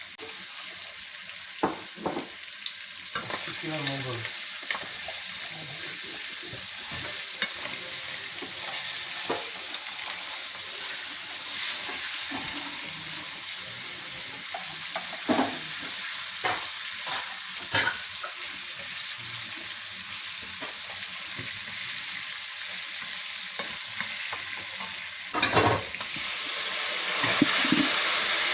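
Curry ingredients sizzling in hot oil in a pan, with a spatula stirring and scraping and clicking against the pan now and then, and a couple of louder knocks near the end.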